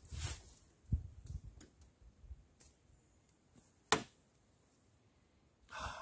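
Faint scattered clicks and rustles of hands handling small things, with one sharp click about four seconds in.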